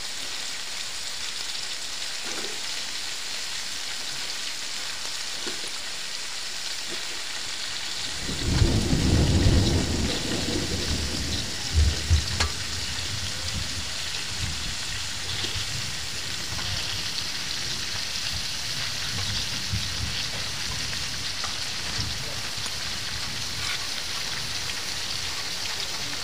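Cubes of young jackfruit frying in hot oil in a steel kadai, a steady sizzle with rain falling. About eight seconds in, a low rumble of thunder rolls for about three seconds, followed by a couple of low thumps.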